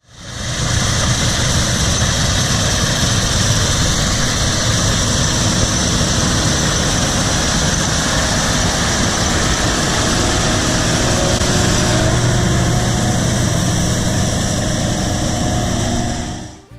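Harvest machinery running steadily: a deep engine hum with a high whirring hiss over it, fading in at the start and dropping away just before the end.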